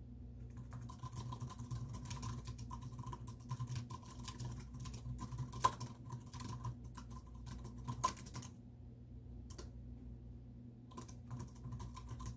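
Typing on a computer keyboard: a quick, dense run of keystrokes for several seconds, a pause of about two seconds, then more typing near the end. A steady low hum runs underneath.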